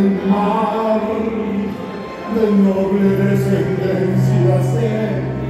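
Music playback with a man's singing voice over it; a low bass note comes in and holds about halfway through.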